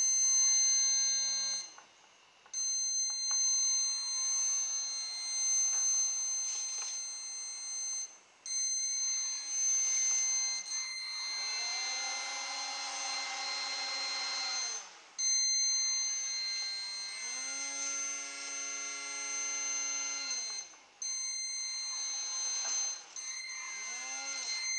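Tiny brushed quadcopter motor spinning a 75 mm two-blade propeller that drives an air-propelled model boat. Its whine rises and falls in pitch with the throttle and cuts out briefly several times. A steady high-pitched whine from the 2 kHz brushed speed controller comes and goes with it.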